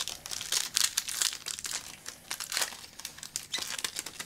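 The wrapper of a trading-card pack crinkling as it is torn open and handled, in irregular bursts of crackle, loudest in the first second and a half.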